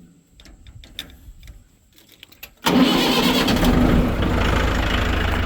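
Tractor engine starting: a few faint clicks, then about two and a half seconds in the engine fires and catches at once and runs steadily, being warmed up before work.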